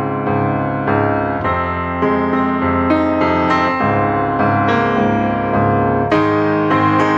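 Background music: piano or electric piano playing a gentle melody with sustained chords.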